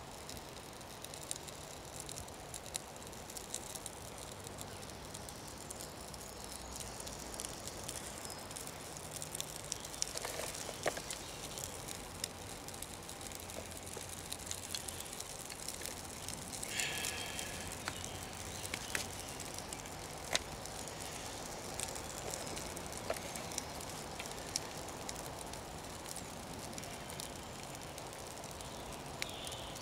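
Small fire of birch bark and dry kindling catching and crackling, with scattered sharp pops over a faint hiss.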